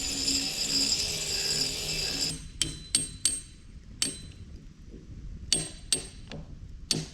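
A steady, noisy running sound cuts off abruptly about two seconds in. It is followed by a series of about nine sharp metallic clicks and knocks at irregular intervals, each with a brief ring.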